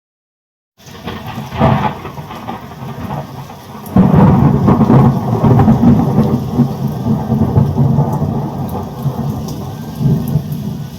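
Thunderstorm with rain falling and thunder. The sound starts suddenly about a second in. A loud thunderclap about four seconds in rumbles on and slowly fades, and another swell of thunder comes near the end.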